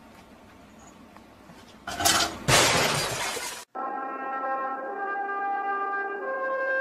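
A sudden loud crash about two seconds in, lasting about a second and a half, then cut off abruptly. After it comes music of long held notes that step from pitch to pitch.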